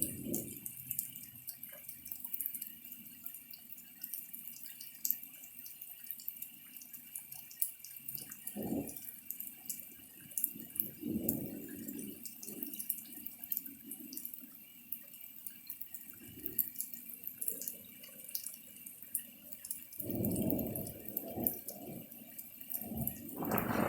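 Rain dripping during a thunderstorm, with scattered drops ticking and a few faint low rumbles now and then. Loud thunder breaks in right at the end.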